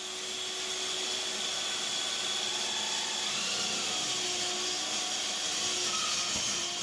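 Miter saw running with its blade in a dowel-making jig while an electric drill spins a square wooden stick through it, shaving the stick round: a steady motor whine with the continuous noise of wood being cut.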